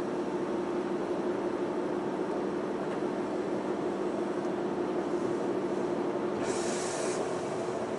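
Semboku Rapid Railway 5000 series electric train running on elevated track, heard from inside the passenger car: a steady hum and rolling noise. About six and a half seconds in there is a brief hiss lasting under a second.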